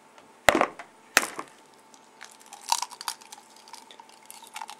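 An egg cracked against the rim of a mixing bowl: two sharp taps about half a second apart near the start, then smaller clicks and crackles as the shell is broken open.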